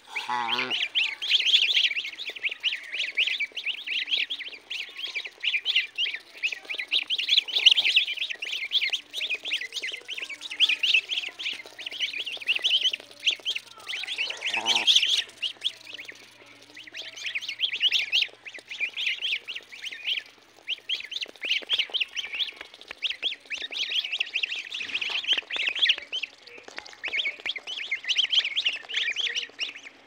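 Two-day-old goslings peeping continuously, many rapid high chirps overlapping as they feed. A brief lower call stands out once about halfway through.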